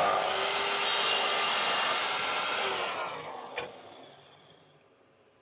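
Power saw running and cutting a corner off an oak offcut, then the motor winding down with a falling whine. There is a sharp click a little past halfway.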